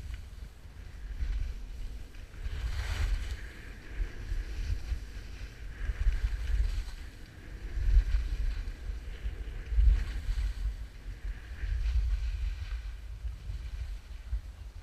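Wind buffeting the microphone while skiing downhill: a gusty low rumble, with the hiss of skis scraping over packed snow swelling now and then, most strongly about three seconds in.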